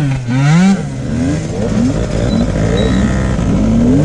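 Several tuned 50cc two-stroke off-road scooters revving together. Their overlapping engine notes keep rising and falling as the throttles are blipped.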